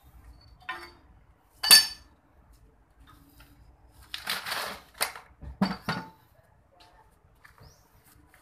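Loose metal tractor-engine parts clinking and clanking as they are handled during teardown: a sharp ringing clank just under two seconds in, a scraping rattle about four seconds in, then three quick knocks.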